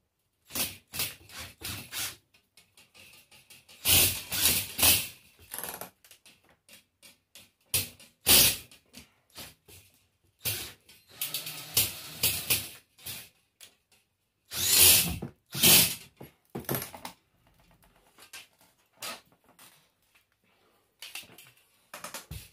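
Irregular clanks, knocks and scraping from a metal mesh fishing cart and tools being handled and shifted about on a workbench, in uneven clusters with short pauses between them.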